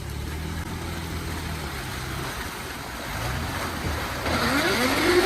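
Toyota Land Cruiser Prado's engine running at a steady pitch, then revving up with rising pitch and a growing rushing noise in the last second or so.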